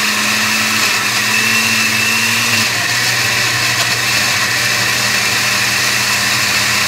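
Countertop blender motor running steadily at speed, grinding roasted tomatoes, chiles and garlic into salsa.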